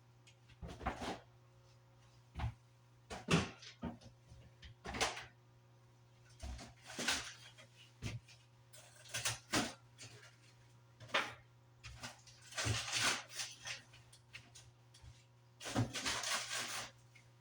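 Kitchen handling sounds: scattered knocks and clicks with several brief rustling, scraping bursts, like doors, containers and utensils being moved, over a steady low hum.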